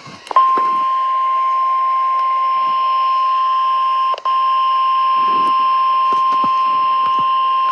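NOAA Weather Radio warning alarm tone (1050 Hz) sounding from a weather radio receiver's speaker for the weekly alarm test: one steady, loud, high tone over a faint hiss. It starts about half a second in and drops out for a moment about four seconds in.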